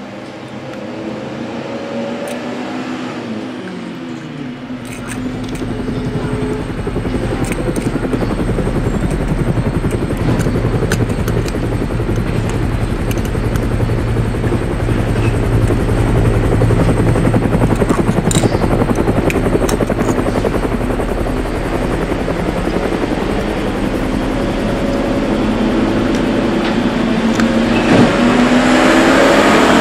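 Helicopter passing overhead: a steady, fast rotor chop that grows louder about five seconds in and stays loud.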